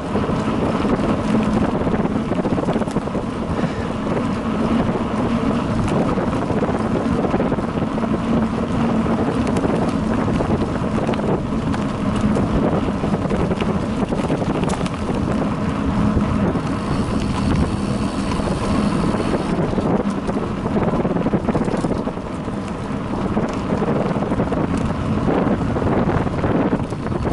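Wind buffeting an action camera's microphone on a bicycle riding a dirt trail at about 20–25 km/h, mixed with the tyres rolling on the dirt and the bike clattering over small bumps. Steady and loud throughout, with a brief higher hiss about two-thirds of the way through.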